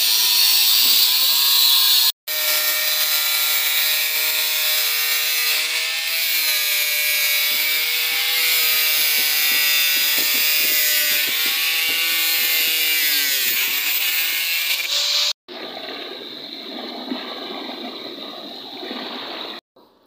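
Electric angle grinders cutting with thin abrasive discs. First the disc cuts an aluminium frame profile, stopping abruptly about two seconds in. Then another cut runs with the motor's whine sagging and recovering in pitch as it is loaded, dipping hardest near the end of that cut, before a quieter, rougher noise takes over for the last few seconds.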